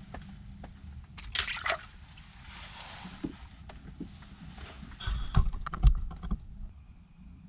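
A bluegill released into an ice-fishing hole: a splash of water about a second and a half in, followed by sloshing, then a few low thumps.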